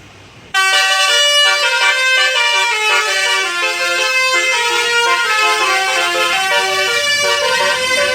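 A tour bus's 'basuri' telolet horn, a multi-note musical horn, playing a melody of quick stepped notes. It cuts in suddenly and loudly about half a second in.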